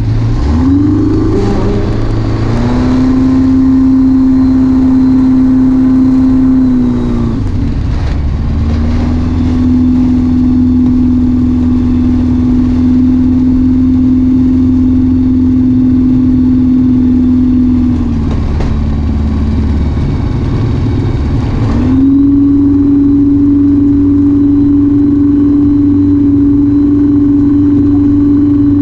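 Just Aircraft Highlander's engine and propeller running while taxiing on the ground, heard from the cockpit. The throttle is opened to a steady higher power three times, with the engine easing back to idle in between, about a third and two thirds of the way through.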